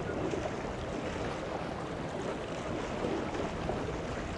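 Steady wash of small waves against jetty rocks and a grounded boat's hull, under a constant wind rumble on the microphone.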